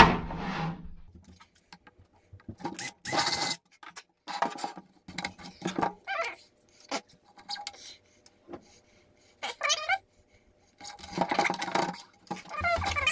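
Paracord being pulled through the holes of a plastic milk crate, with short squeaks of cord rubbing on plastic amid scattered rattles and scrapes from handling the crate. A sharp knock comes right at the start.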